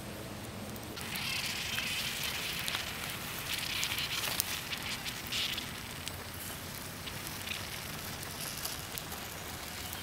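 Snails roasting in their shells on hot embers, sizzling with scattered small crackles and pops. It starts about a second in and is strongest in the first half.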